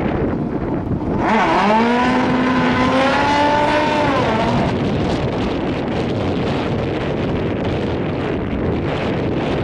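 Drag-racing motorcycle engine revved up and held high for about three and a half seconds. The note dips, climbs and holds, then falls away. A steady rushing noise runs throughout.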